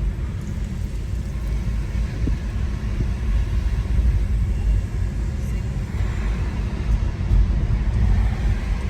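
Low, steady rumble of a car creeping along slowly in traffic, heard from inside the cabin.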